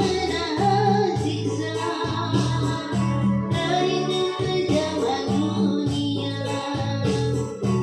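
Music: a song with singing over a steady bass beat.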